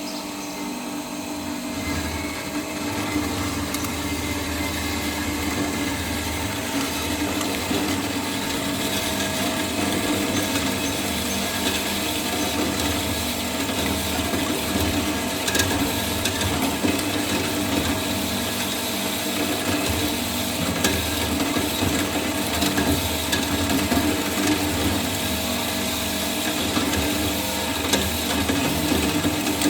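Pehaka ROB-200S three-phase automatic metal bandsaw running steadily, a continuous machine hum with a fixed pitch.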